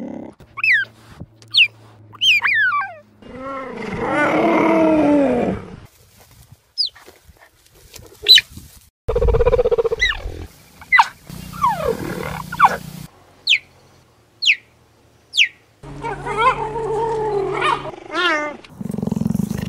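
Big cat vocalising in three bouts of a second or two each, with short, high, falling chirps in between.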